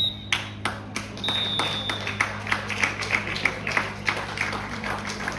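A referee's whistle sounds a short pip, then a longer blast about a second in. Over it, a group claps in a steady rhythm that gets quicker, with a steady low hum underneath.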